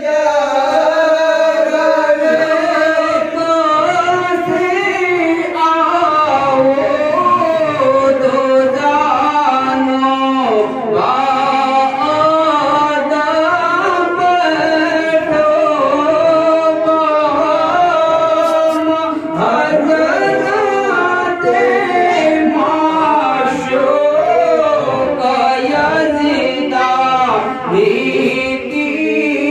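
Male voices chanting an Islamic devotional hymn through a microphone, with long, wavering, drawn-out notes that continue without a break.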